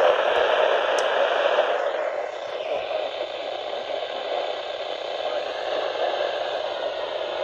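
Static hiss from a weather radio on a weak NOAA Weather Radio signal between phrases of the broadcast, a little louder for the first two seconds, then easing.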